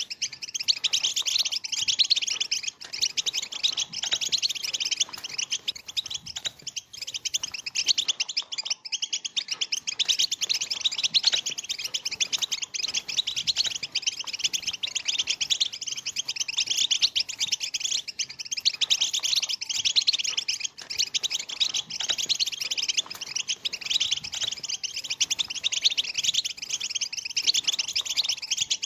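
A flock of European goldfinches twittering and chattering, many birds at once in a dense, unbroken chorus of fast, high notes: the goldfinch's 'batbata' twittering song.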